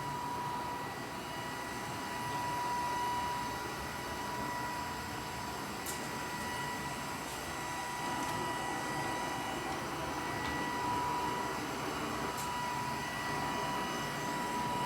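Roomba robot vacuum running: a steady whir with a constant high whine, and a couple of light clicks.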